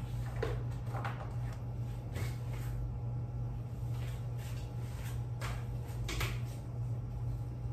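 A steady low hum runs throughout, with a few brief, faint rustles and light knocks, such as paper cards and box flaps being handled.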